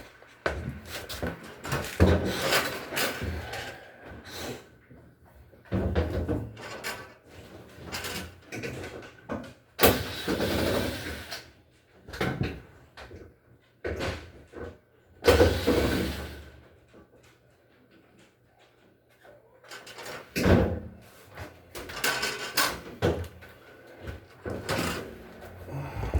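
Irregular knocks, clunks and scraping from the parts of a front-loading washing machine being handled and moved during disassembly, with two longer scraping stretches about ten and fifteen seconds in and a brief lull in between.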